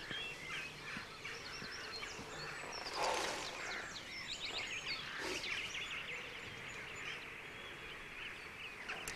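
Many birds chirping and calling around a cliff face, a steady stream of short, quick calls, with a brief rush of noise about three seconds in.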